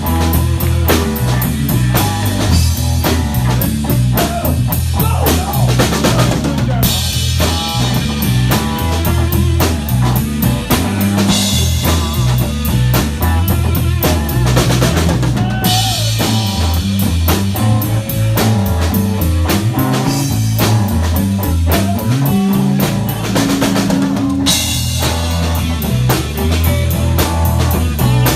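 Live band playing a song: a drum kit keeps a steady, busy beat under guitar and low bass notes, with three stretches of heavier cymbal wash.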